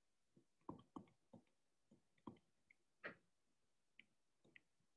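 Near silence with about eight faint, irregular taps of a stylus writing on a touchscreen.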